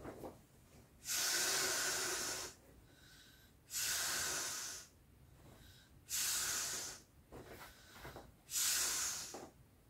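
Four long breaths blown by mouth into the valve of an Intex Wave Rider GP500 inflatable jet ski, reinflating its base chamber, which had lost some pressure. Each blow is a rushing hiss of a second or so, with quieter pauses for breath between.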